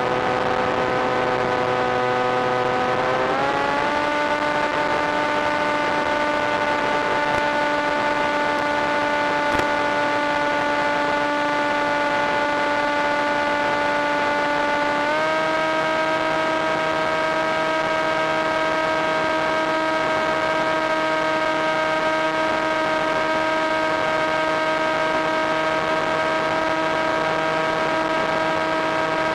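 Electric motor and propeller of an FPV aircraft running at steady throttle: a continuous hum whose pitch steps up about three seconds in and again about fifteen seconds in.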